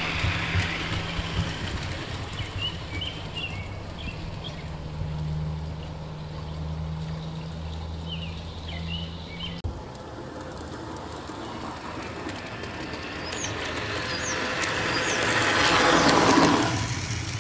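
G-scale model train running on garden railway track, with a steady motor hum and the rumble of wheels on the rails. Birds chirp now and then. Near the end a locomotive passes close by: the sound swells to its loudest and then drops away.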